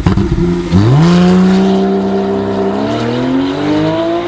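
Porsche 991 Carrera 4S flat-six engine accelerating: the revs shoot up sharply a little under a second in, hold steady for about two seconds, then climb gradually.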